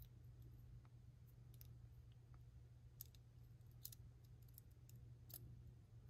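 A handful of faint clicks of small metal pistol parts being fitted by hand, as the takedown safety bar is worked into the Sig P365's fire control unit, over a low steady hum.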